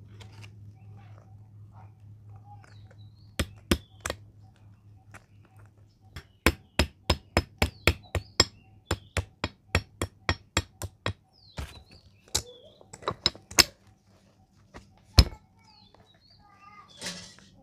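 Sharp hammer blows on metal: a few strikes, then a fast run of about three a second, then scattered single blows, the loudest near the end.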